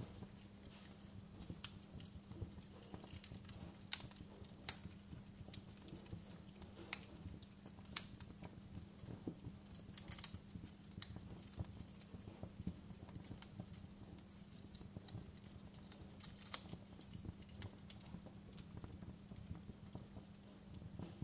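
Wood fire crackling in a fireplace: irregular sharp pops and snaps, a few of them much louder than the rest, over a low steady rumble.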